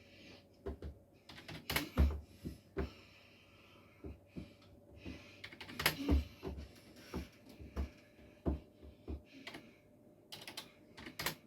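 Quick, irregular key taps on a computer keyboard, a few clicks a second with uneven gaps, some strokes carrying a dull thump.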